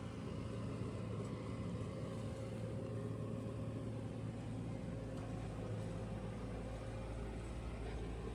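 Engine of heavy construction machinery running steadily, a constant low hum with no change in speed.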